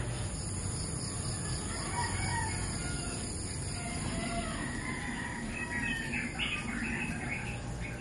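Domestic chickens calling, with a rooster crowing, over a steady low background hum.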